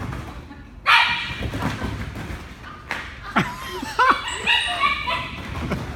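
Dogs barking and yipping in a play chase: one loud bark about a second in, then a quick run of short high yips past the middle.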